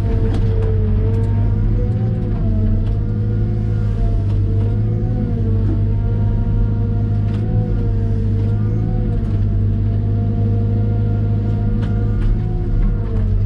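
Caterpillar M313D wheeled excavator's diesel engine running steadily under load, with a whine that rises and falls in pitch as the machine works.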